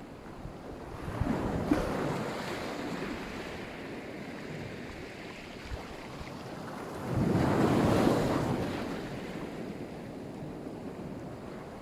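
Sea waves breaking on the shore: a smaller wave about a second in and a louder one about seven seconds in, each washing in and then fading back, with wind rumbling on the microphone.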